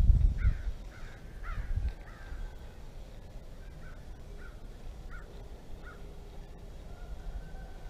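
A bird calling over and over, about nine short calls spaced half a second to a second apart, growing fainter and stopping about six seconds in. A low rumble sits under the first two calls.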